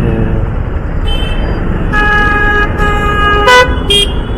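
Vehicle horns honking in dense city traffic: several blasts of different pitches, the loudest a short blast near the end. Under them runs a steady low rumble of wind and engine from the moving motorcycle.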